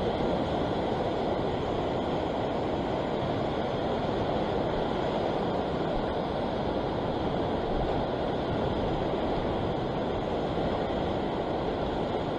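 Steady rush of ocean surf washing against the rocks, mixed with wind on the microphone.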